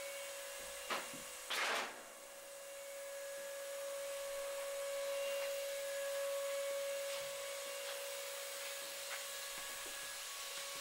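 Beeswax comb-foundation casting and embossing machine running with a steady even hum. There is a short click about a second in and a brief louder noise just after it.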